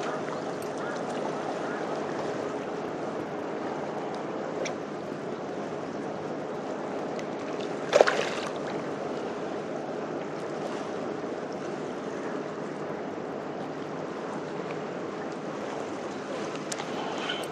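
Steady wind and water noise while a fish is played on a bent rod; about eight seconds in, one sharp splash as the hooked fish breaks the surface.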